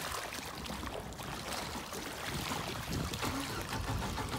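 MerCruiser 3.0 four-cylinder sterndrive engine of a Bayliner runabout running at a distance, mixed with a steady hiss of wind.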